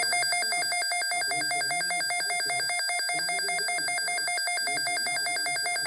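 Weather radio's built-in alert alarm: a loud, rapidly pulsing electronic trill that sounds as the radio receives a severe weather alert.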